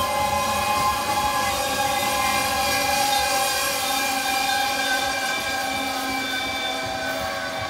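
Loaded coal hopper cars rolling slowly past, their steel wheels squealing in several steady high tones as the train slows, easing off slightly near the end.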